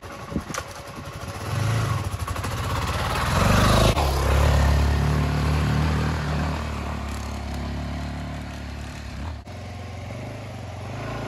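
Suzuki DR-Z400's single-cylinder engine revving up, climbing in pitch and growing loud up to about four seconds in, then running at a steady speed.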